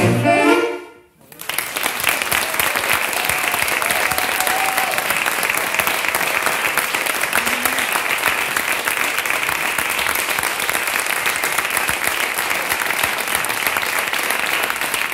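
The music's last chord breaks off within the first second. After a brief gap, an audience applauds steadily.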